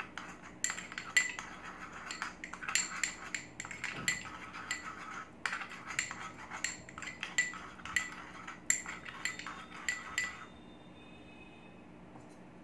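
A metal spoon stirring a thick gram-flour and yogurt paste in a small glass bowl, clinking and ringing against the glass several times a second. The clinking stops about ten seconds in, leaving a faint steady hum.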